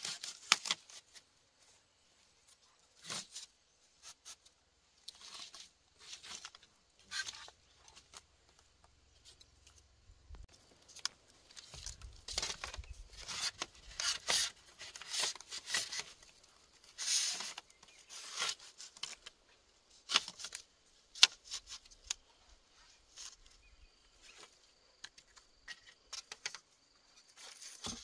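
Split bamboo strips and poles being handled and laid across each other on grass: irregular rustling and scraping with a few light clicks and knocks.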